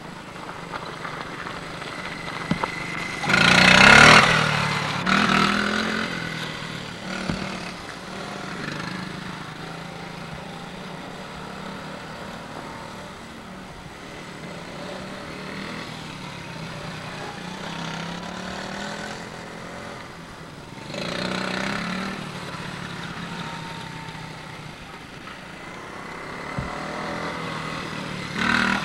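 Small children's motorcycle engines running as the bikes ride around, a steady buzzing drone that grows louder about four seconds in, again around twenty-one seconds, and once more near the end as a bike revs or comes close.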